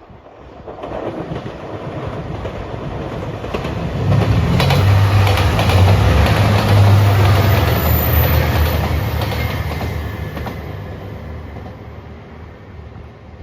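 JR Shikoku 2700 series diesel limited express passing close by at speed. Its low engine drone and the clatter of wheels over the rail joints swell to a peak about five to eight seconds in, then fade away.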